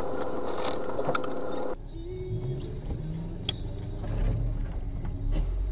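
Car engine and road noise from inside a moving car. About two seconds in, it cuts abruptly to a quieter recording with a low engine hum and a few light clicks.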